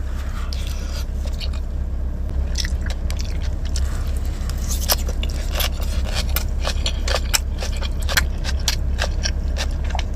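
Close-miked eating: chewing with wet mouth clicks and smacks scattered irregularly, over a steady low hum.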